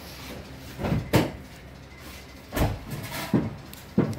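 A handful of irregular knocks and clunks, a few of them sharp, over a faint low background hum. There is no steady engine note yet.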